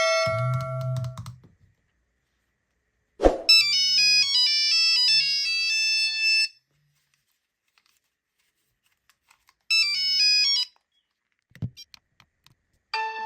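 Mobile phone ringtones: electronic melodies of stepping pitched notes played in short phrases separated by silent gaps. A click sounds about three seconds in, and a different, denser melody starts near the end.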